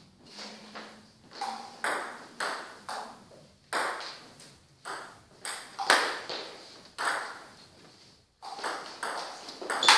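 Table tennis rally: the celluloid ball clicking sharply off the rackets and the table about twice a second, each hit ringing briefly in the hall. The hits stop for about a second near the end, then start again with the next point.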